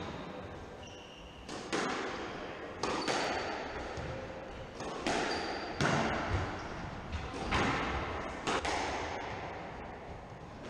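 Squash rally: the ball is struck by the rackets and cracks off the walls, about a dozen sharp hits, often in quick pairs, each ringing on in the echoing court. A few short, high squeaks come between the hits.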